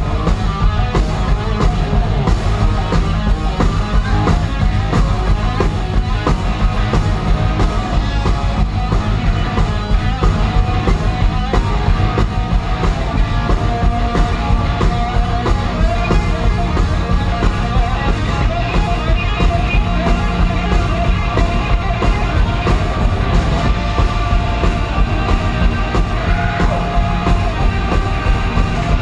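Live rock band playing loud: electric guitar, bass guitar and drums, with a singer's vocals over them.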